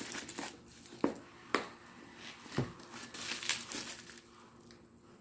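Product packaging being handled and opened: crinkling and rustling with a few sharp snaps, fading out near the end.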